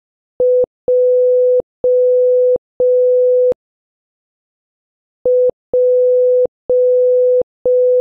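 Morse code practice tone sounding the letter J (dit-dah-dah-dah): one short beep then three long beeps of a single steady pitch, repeated after a pause of about a second and a half.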